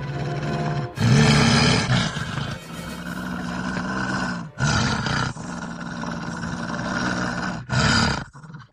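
Deep beast roars, the sound effect for a man turning into a werewolf. A string of long roars, the loudest starting about a second in, another at about four and a half seconds and a short one near the end.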